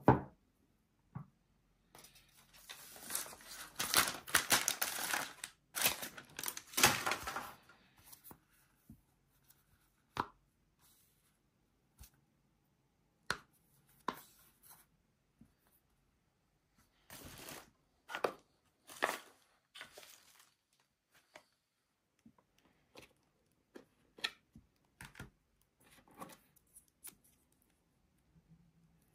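Cardboard and paper packaging being torn open and handled, in two longer stretches of tearing and rustling with scattered clicks and taps between.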